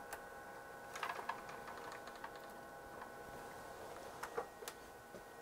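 Faint light clicks and taps of hands setting up a second oscilloscope probe at the bench: a small cluster about a second in and another near the end, over a faint steady whine.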